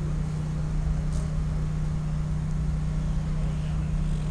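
Steady low hum with a rumble beneath it, unchanging throughout.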